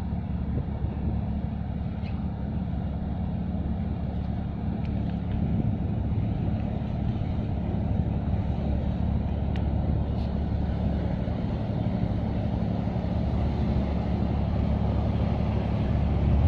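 Low, steady droning rumble of a large container ship's machinery as it passes close by, growing slightly louder.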